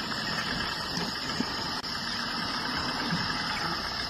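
A vehicle engine idling steadily, with a brief dropout about two seconds in.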